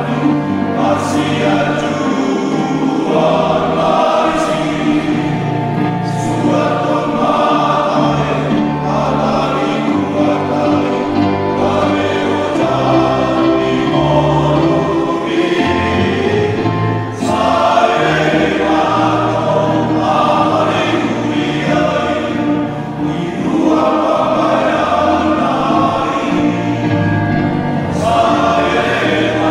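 Men's church choir singing a hymn in parts, accompanied by an electronic keyboard.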